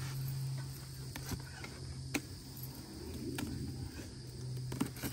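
Steady high-pitched insect buzzing, with a low steady hum under it and a few sharp clicks scattered through.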